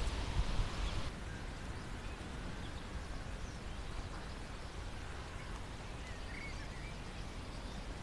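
Wind rumbling on the microphone for about the first second, then a quiet open-field ambience with a few faint bird chirps.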